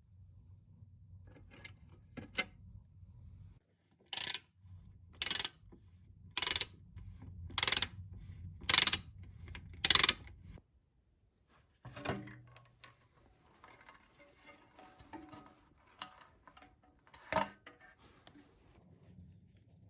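Hammer striking metal: six sharp, regular blows about a second apart, then lighter metallic clatter and one more blow near the end.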